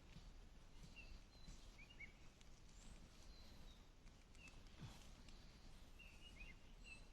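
Near silence: faint outdoor background hiss with a few brief, faint bird chirps scattered through it.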